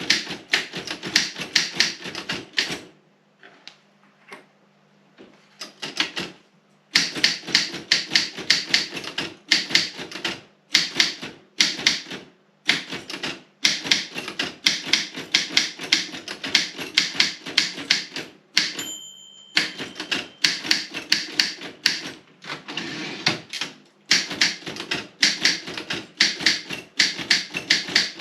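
Robotron 20 typewriter being typed on in fast runs of sharp key and typebar strikes, with a pause of a few seconds near the start and short breaks between bursts. A brief ringing tone sounds about two-thirds of the way through.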